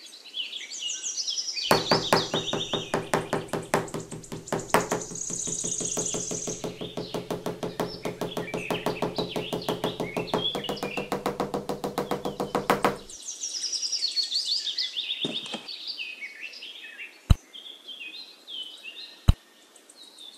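Rapid, evenly paced knocking, several strokes a second, lasting about eleven seconds and then stopping, with birds chirping throughout. Two single sharp knocks follow near the end.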